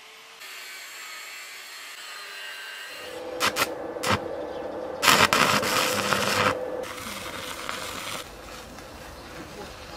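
Stick welding of steel rods with a small inverter arc welder: a few sharp pops as the arc is struck, then a loud crackling sizzle of the arc that eases off about eight seconds in. A fainter steady hiss comes before it.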